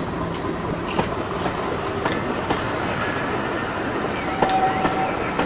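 Railway passenger coaches rolling past close by, their wheels clicking over rail joints, with a brief wheel squeal about four and a half seconds in.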